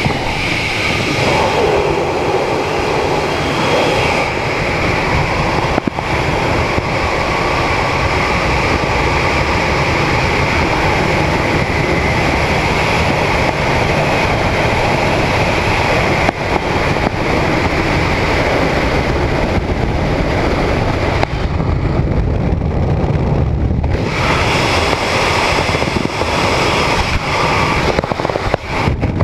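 Skydiving freefall wind rushing over a helmet camera's microphone: a loud, steady rush of air whose hiss thins for a few seconds about two-thirds of the way through.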